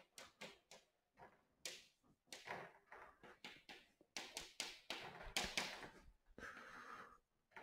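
Chalk writing on a chalkboard: faint short taps and scrapes as the strokes of an equation go down, most of them bunched between about four and six seconds in.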